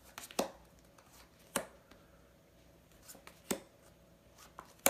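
Playing cards being dealt and snapped down one at a time onto a cloth mat: a handful of short, sharp card slaps a second or two apart, the last the loudest.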